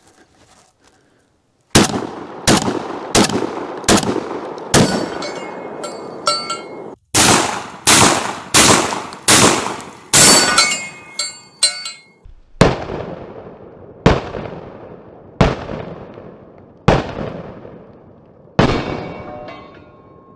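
Citadel Bosshog 12-gauge semi-automatic shotgun firing about fifteen shots, first in quick strings roughly two-thirds of a second apart, then slower single shots with long echoing tails. Several shots are followed by a metallic ringing, pellets striking steel targets.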